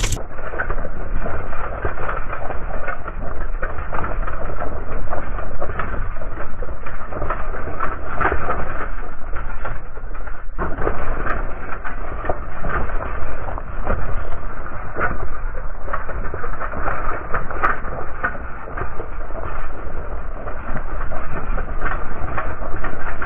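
Mountain bike rolling down a rocky gravel track: tyres crunching over stones and the bike rattling, with many small knocks in a constant rumble. The audio is played in slow motion, so it sounds deep and muffled.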